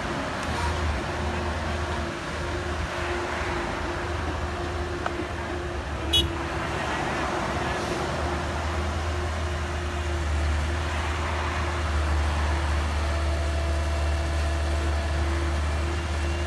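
Komatsu PC138US excavator's diesel engine running steadily as the machine dumps and swings its arm. The low engine drone grows stronger about halfway through, and there is a single sharp click a little before that.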